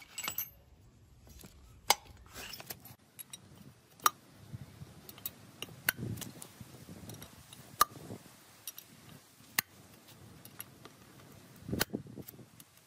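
Sharp metallic clinks and knocks about every two seconds, metal tools and parts striking each other during engine and gearbox teardown.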